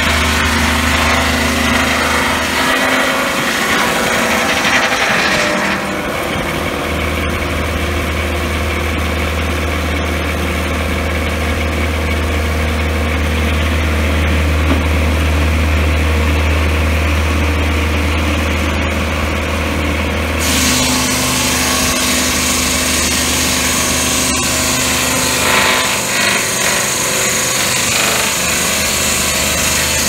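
Turbosawmill Gladiator M12 swingblade sawmill running under a steady engine drone. Its large circular blade saws through a log for the first few seconds, spins free out of the cut from about six seconds in to about twenty, then bites into the log again for the rest.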